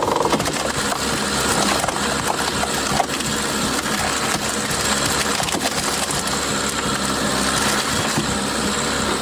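Hydraulic log splitter with its engine running as a large log is forced apart, the wood crackling and splintering.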